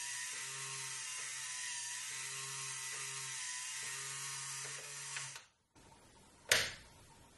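Simplicity Bias Tape Maker's electric feed motor running, drawing a fabric strip through its heated iron: a wavering whine over a hiss, with a low hum that comes and goes. It stops about five and a half seconds in, followed by a single sharp click.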